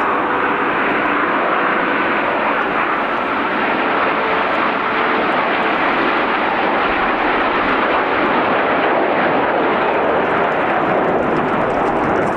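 Aermacchi MB-339 jet aircraft flying overhead, a loud, steady jet engine roar with a faint whine that fades out about five seconds in.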